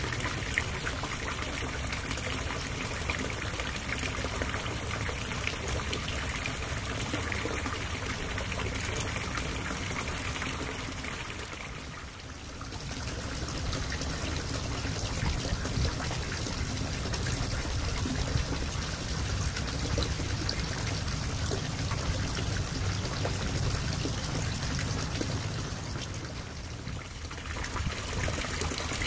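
Water pouring and trickling steadily into a backyard garden pond, dipping briefly twice.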